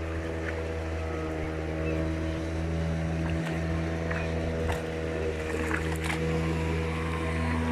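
A motor running at a steady speed, an even low hum that does not change in pitch, with a few faint clicks over it.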